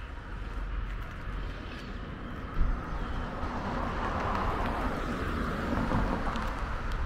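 A vehicle passing by, its noise swelling to a peak about halfway through and then easing off over a low rumble, with one sharp knock about two and a half seconds in.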